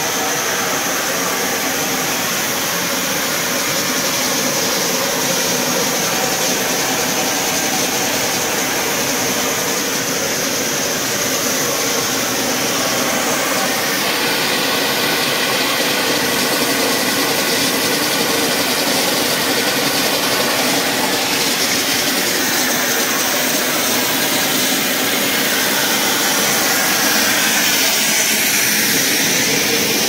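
Steady whirring machinery noise of a running EVA spiral hose extrusion line, its motors and blowers running continuously.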